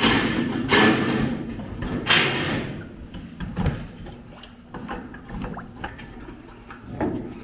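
Brake bleeding: three short hissing spurts in the first couple of seconds as air and brake fluid are pushed out through a bleeder, then light scattered clicks and knocks.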